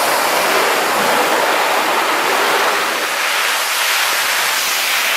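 Vacuum cleaner running with its nozzle held to a compact camera's lens, a loud, steady rushing hiss.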